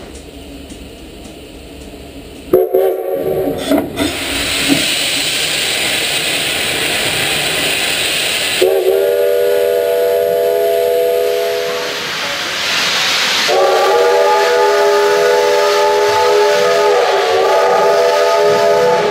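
Steam locomotive blowing its chime whistle three times, a short blast, then a longer one, then a long one that wavers briefly near the end, each a chord of several tones. Steam hisses loudly throughout.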